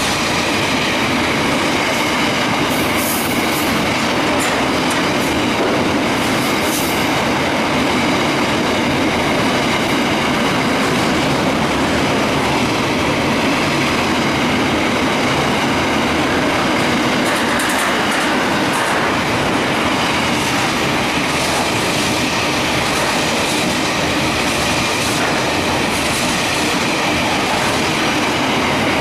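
Container freight train running through at speed, its wagons passing close by with a loud, steady rush of wheels on rail. A few short high-pitched screeches come about 3 and 6 seconds in, and again around two-thirds of the way through.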